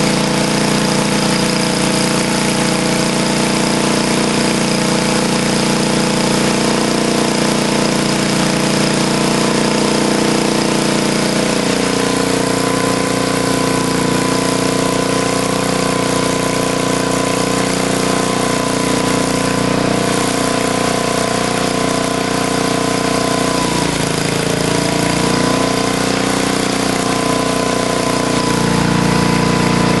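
1962 Snow Bird S-262 snowblower's small gasoline engine running steadily, its speed shifting about twelve seconds in and dipping briefly around twenty-four seconds.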